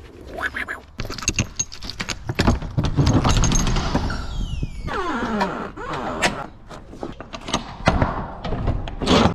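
Rear door of a box trailer being unlatched and swung open: clanks and knocks of its metal locking bars and handle, with a falling squeal about halfway through, then more knocks as the door is fastened back against the trailer side.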